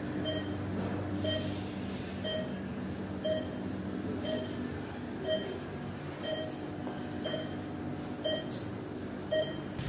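Hospital patient monitor beeping evenly, about once a second, over a steady low hum.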